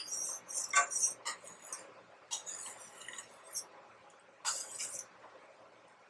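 Metal spoon scraping and clinking against a stainless steel saucepan while semolina kheer is stirred: a run of short strokes in the first few seconds, one more just before the five-second mark, then quieter.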